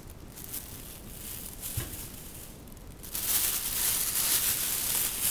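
Thin plastic grocery bags rustling as produce is handled and lifted out, quiet at first, then loud from about three seconds in.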